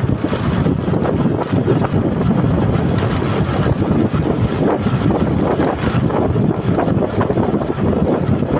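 Wind buffeting the microphone: a loud, uneven rumble with no steady tone.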